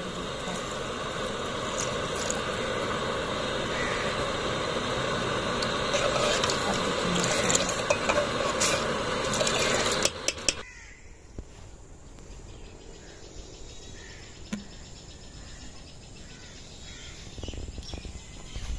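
Milky tea boiling hard in an aluminium pot: a loud, steady bubbling hiss with occasional clinks of the metal ladle, with milk being poured in. After about ten seconds it cuts off suddenly to quiet outdoor ambience.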